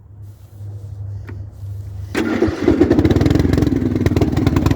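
Yard Machines 13.5 hp riding mower engine being started on choke: a low steady whirr for about two seconds as it cranks, then the engine catches and runs.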